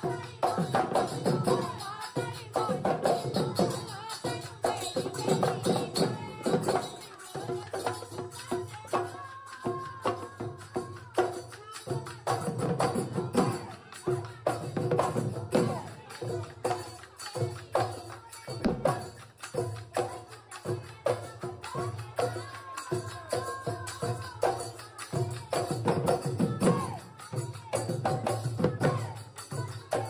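Background folk music with a fast, busy percussion rhythm and a melody over it.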